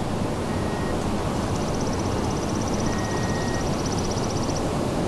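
Steady outdoor ambience on a golf course, a dense even rush like wind on the microphone. A faint, fast, high-pitched ticking trill runs from about a second in until near the end.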